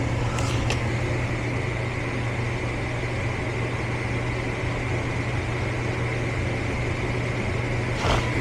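Steady low mechanical hum of running equipment, with a couple of faint clicks about half a second in.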